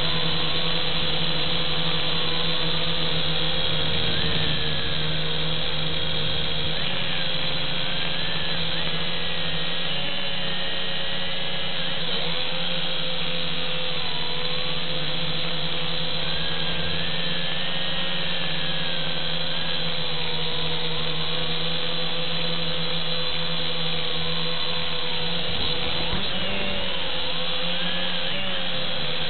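Syma X5C toy quadcopter in flight, heard from its onboard camera: its four small coreless motors and propellers whine steadily, the pitch rising and falling as the throttle changes.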